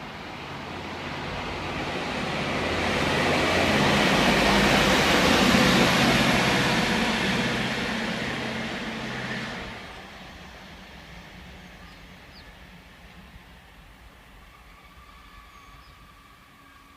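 Rail maintenance vehicle passing on the track. It grows louder to a peak about five seconds in, with its diesel engine and running gear, and a thin high squeal from the squealing brakes rides over the pass. The sound drops away abruptly near the ten-second mark and fades to a low background.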